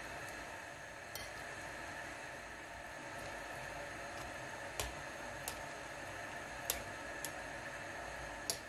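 Pot of hot water bubbling with a steady low hiss as peeled tangerines are pushed under with a skimmer. About half a dozen light clicks come from the skimmer knocking against the fruit and the pot.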